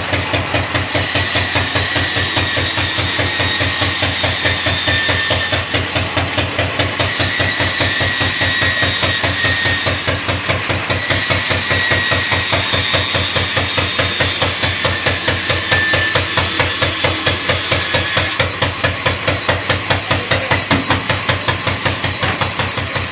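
Large vertical band saw running with a fast, regular pulsing thump, its blade ripping lengthwise through a long wooden plank. A faint high whistle comes and goes over the machine.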